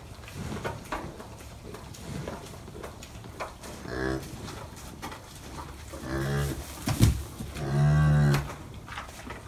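Cow mooing low to her newborn calf: three calls about two seconds apart, each longer than the one before, the last the longest and loudest. A sharp knock comes just before the last call.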